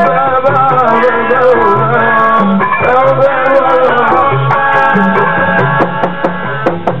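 Live Fuji music: a man's lead vocal sung into a microphone over drums and percussion.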